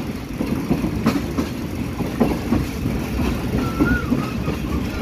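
Moving passenger train heard from an open coach window: a steady rumble of the wheels on the rails, with irregular clacks as the wheels pass over rail joints.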